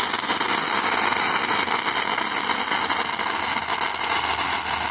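Ground fountain firework spraying sparks: a steady, loud hiss with fine crackling that grows denser near the end.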